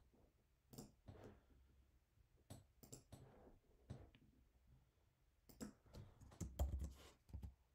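Faint scattered clicks and keystrokes from a computer keyboard and mouse, a few spread out at first, then a quicker run of taps near the end.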